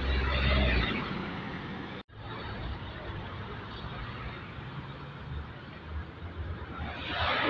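Street traffic noise: a motor vehicle passes close in the first second with a deep rumble, then a steady background hum of traffic. The sound cuts out for an instant about two seconds in.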